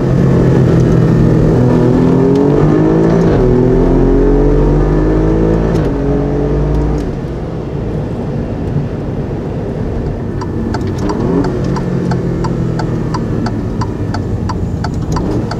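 Alfa Romeo Giulia Quadrifoglio's twin-turbo V6 accelerating hard, the pitch climbing and dropping back at two upshifts. It then settles into a quieter, steadier run. From about two-thirds of the way in, a regular ticking of about two to three a second joins it.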